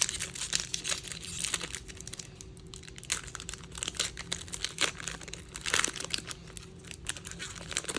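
Foil wrapper of a Magic: The Gathering collector booster pack being crinkled and torn open, with a run of irregular sharp crackles.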